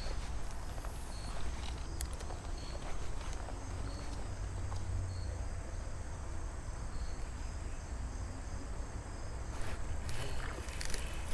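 Crickets chirping, short high chirps repeating at an even pace, over a steady low rumble. A few clicks and knocks near the end.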